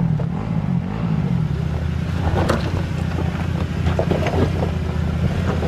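Off-road Jeep engine running low and steady as it crawls over the rocks, with a few short knocks.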